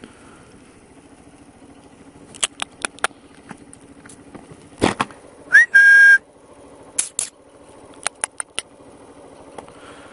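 A person whistling to call horses over: a short rising whistle about halfway through, then a steady whistled note held for about half a second, among several groups of sharp clicks. A motorcycle engine idles steadily underneath.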